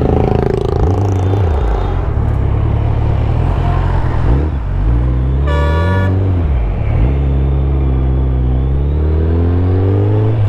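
Suzuki Hayabusa's inline-four engine accelerating through traffic in its A riding mode. Its note climbs and drops with the gear changes, then climbs steadily through the second half. A vehicle horn toots once, briefly, about halfway through.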